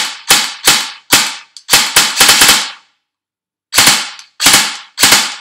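King Arms M4 airsoft electric gun firing on semi-automatic from an 11.1 V LiPo battery: about a dozen sharp shots, unevenly spaced, with a pause of about a second past the middle. Some trigger pulls fire twice, a double-fire fault on semi that happens with the 11.1 V battery but not with a 7.4 V one.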